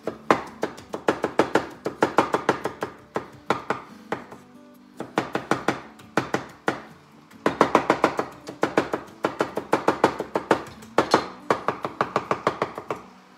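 Large kitchen knife chopping jalapeño slices on a wooden cutting board: quick runs of sharp knocks, several a second, with short pauses between runs.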